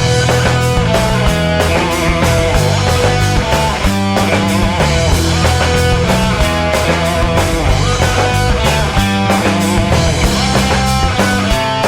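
Live punk rock band playing an instrumental passage: electric guitar playing held lead notes over bass and a steady drum beat, with no vocals.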